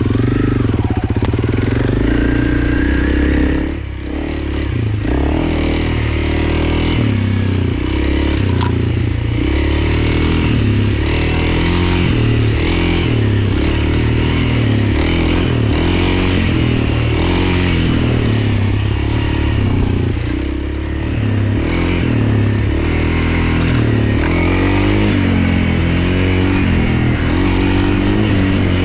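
Honda CRF300L's single-cylinder four-stroke engine being ridden, its revs rising and falling again and again, with brief throttle-offs about four seconds in and again around twenty seconds in.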